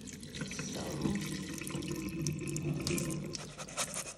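Water running from a kitchen tap into brown rice being rinsed, with small splashes; the flow stops near the end.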